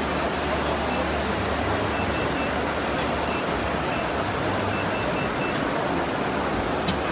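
Automatic screen-printing machine running, a steady mechanical din with a low hum, and faint short high beeps repeating in small groups.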